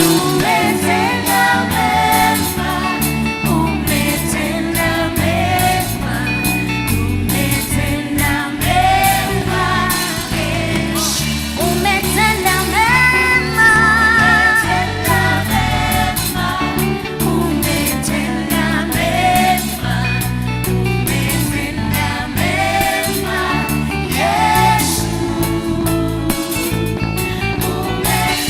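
A gospel band plays with singing over a steady bass and accompaniment, and a held, wavering sung note a little under halfway through.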